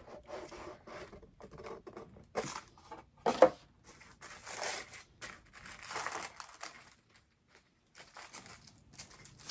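Gift packaging being handled and opened: rustling and crinkling of paper or a gift bag, with a sharp click about three and a half seconds in.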